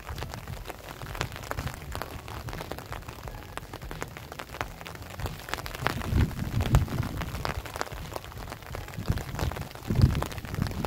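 Rain falling on an umbrella overhead, heard as a steady hiss dotted with many separate drop ticks, with a few low thuds about six and ten seconds in.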